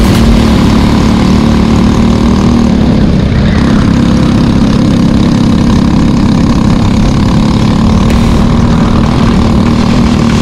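Briggs & Stratton LO206 kart engine running at a fairly steady pitch, dipping briefly about three seconds in.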